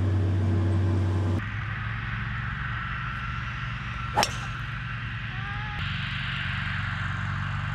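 A golf club striking a ball once, a single sharp crack about four seconds in, over outdoor background noise. Before it, a steady low hum cuts off suddenly about a second and a half in.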